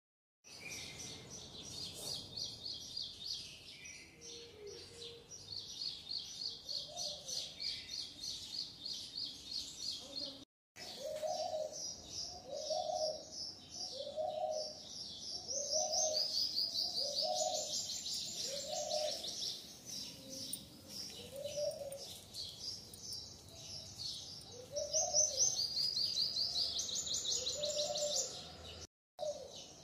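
Birds chirping in rapid high trills, with a lower rising-and-falling call repeated about once a second. The sound drops out for a moment twice.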